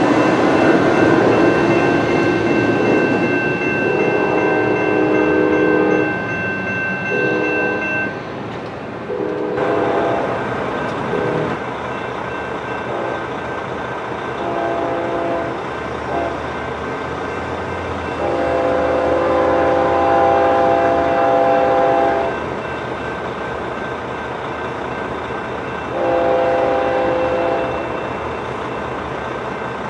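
A locomotive horn sounds a series of chord blasts, several steady notes held together, with one long blast in the middle. It comes over the fading rumble of a train that has just passed.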